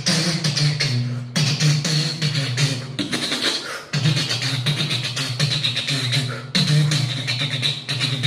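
A man imitating a passing train with his voice, beatbox-style: a hummed low drone under hissing, chugging breath noise, broken by short pauses for breath every second or two.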